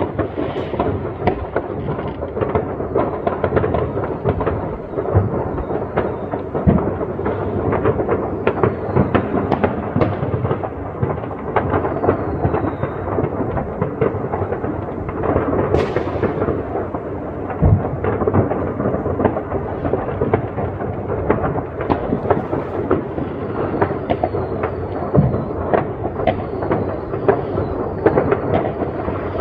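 New Year's Eve fireworks: a dense, continuous barrage of bangs and crackling from many rockets and firecrackers going off at once. Short high whistles are heard now and then, and there is a sharp crack about sixteen seconds in.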